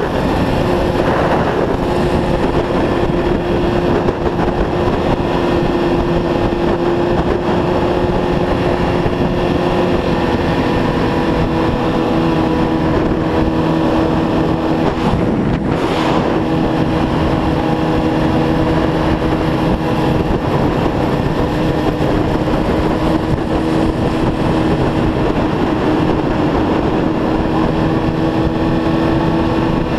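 Sport motorcycle engine running at a steady highway cruise under heavy wind rush on the microphone, its note dipping slightly about eleven seconds in. A brief swell of rushing noise comes about sixteen seconds in.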